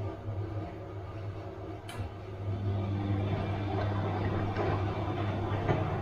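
Bosch washing machine running, with a steady motor hum. A sharp click comes about two seconds in, after which the drum's churning grows louder.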